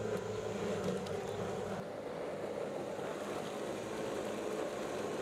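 A motor or engine running steadily, a low even hum with no change in speed.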